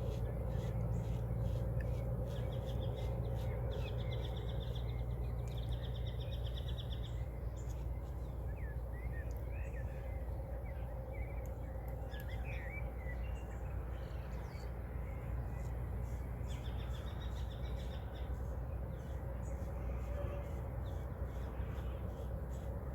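Birds singing at dawn, with three rapid trills and scattered chirps, over a steady low hum. Short scratchy ticks recur throughout.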